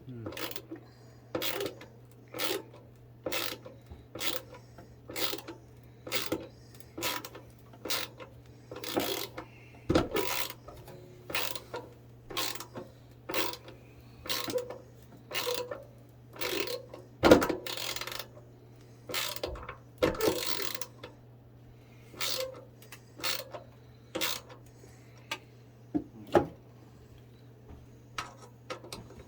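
A screw being driven in by hand with a screwdriver: a short rasping creak with each turn, repeating about once a second, with a few louder knocks among them.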